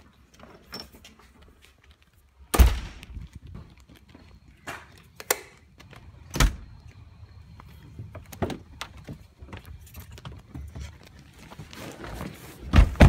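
Doors shutting with heavy thunks about two and a half and six and a half seconds in, with scattered clicks, rustling and knocks of handling between them, and another loud knock near the end.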